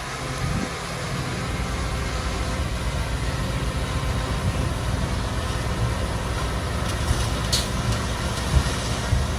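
Heavy diesel engine of an earthmoving machine running steadily, with a brief sharp high sound about three quarters in and a couple of knocks near the end.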